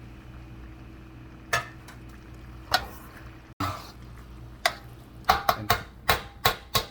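A metal utensil knocking against a cooking pot while stirring: a few separate clinks, then a quicker run of them near the end, over a steady low hum.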